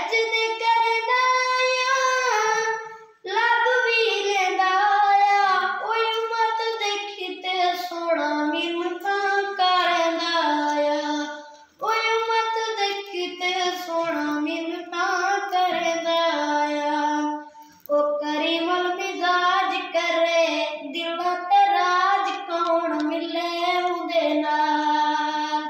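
A boy's unaccompanied voice reciting a naat, Islamic devotional poetry sung in long melodic phrases, with brief pauses for breath about three, twelve and eighteen seconds in.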